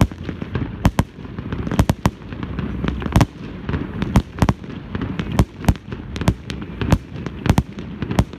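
An aerial fireworks display going off: a rapid, uneven series of sharp bangs, about two to three a second, with a low rumble between them.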